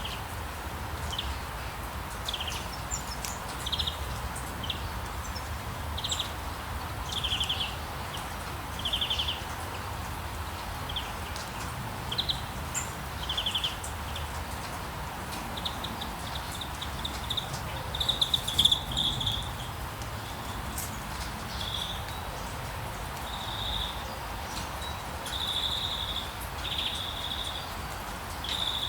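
Birds chirping, short calls and fast trilled notes repeating every second or two over a steady background hiss, with a louder burst of chirps about two-thirds of the way through.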